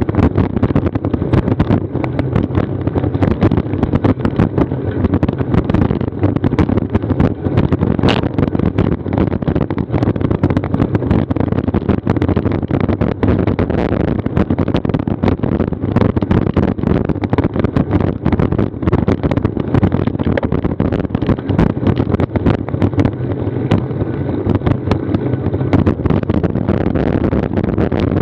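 Wind and road noise on a bicycle-mounted action camera: a steady rumble with frequent small knocks and rattles.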